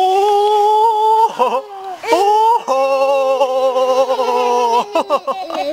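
A man's long, drawn-out playful "ooooh" call held on one pitch, given twice: first for a little over a second, then a longer, lower one of about two seconds.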